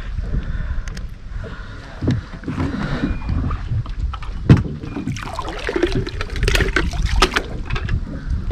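Water splashing and knocks as a yellow bait bucket used as a live well is lowered into lake water beside a wooden dock and left floating, the loudest knock about four and a half seconds in. Wind rumble on the microphone underneath.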